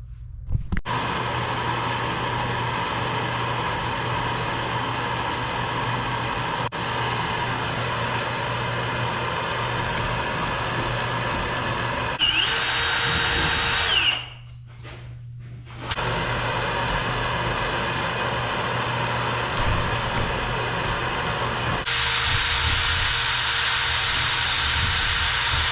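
Power drill running steadily as it bores a hole through a wooden block for a knife guard. It stops briefly about halfway through, then runs again.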